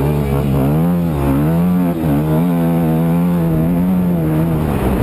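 Dirt bike engine heard up close from the bike itself, revving hard up a dirt trail. The pitch eases off briefly twice in the first couple of seconds, holds at steady high revs, then drops near the end.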